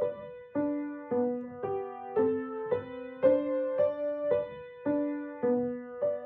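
Piano playing a simple beginner piece, notes struck at an even pace of about two a second, each ringing and fading before the next.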